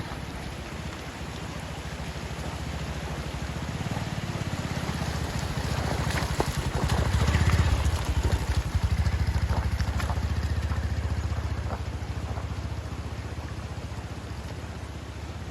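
Motorcycle engine running just after a cold start, its chill eased with hot water. The revs rise to a peak about halfway through, then settle back.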